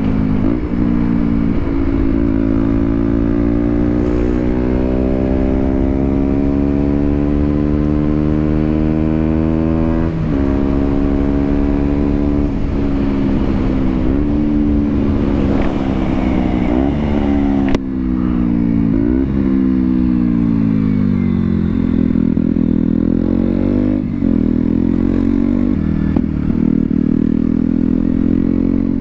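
KTM Duke 125's single-cylinder four-stroke engine pulling a motorcycle through the gears, heard from the rider's position. The engine note climbs steadily and drops sharply at an upshift about ten seconds in, falls away in the middle as the bike slows, then climbs again near the end. Wind rushes over the microphone throughout.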